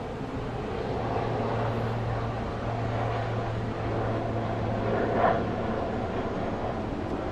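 Steady low hum over a rumbling background noise, with a brief swell of higher sound about five seconds in.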